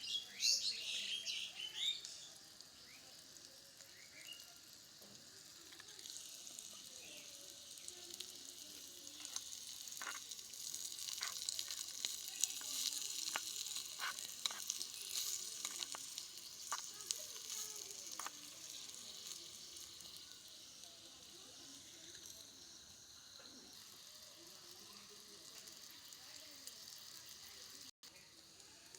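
Food frying in hot oil in a pan, sizzling. There is a loud burst of sizzle in the first couple of seconds, then the sizzle swells again in the middle with a string of sharp clicks, and it settles down toward the end.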